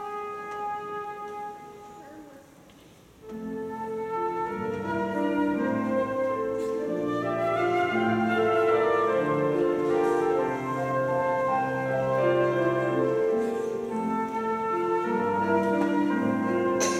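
Concert flute with piano accompaniment playing a slow classical serenade. A held flute note dies away, there is a brief near-pause, and about three seconds in the piano comes back with low chords as the flute resumes the melody.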